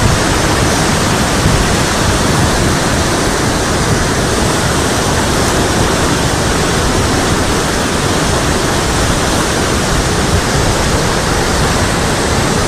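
Flash-flood torrent of muddy water rushing past: a loud, steady roar of turbulent water.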